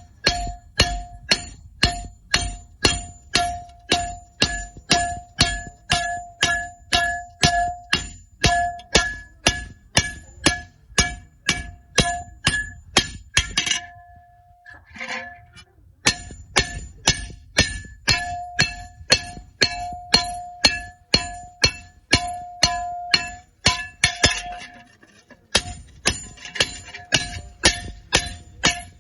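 Hammer striking an iron piece in a steady rhythm of about two blows a second, each blow ringing like struck metal. The hammering breaks off twice for a second or two.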